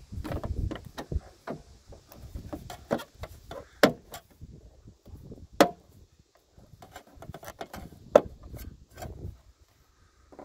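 Plastic rear-view camera and trunk-handle housing being pressed and snapped into the trunk-lid recess: a series of small clicks and knocks, with three sharper snaps about four, five and a half, and eight seconds in.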